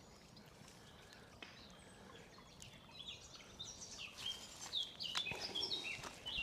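Small songbirds chirping and singing, faint at first, then a busy run of short high notes from about three seconds in.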